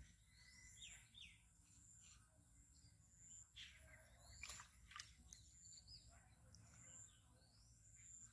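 Near-silent outdoor ambience with faint bird chirps and short whistled calls scattered through it, and a few faint sharp clicks about halfway through.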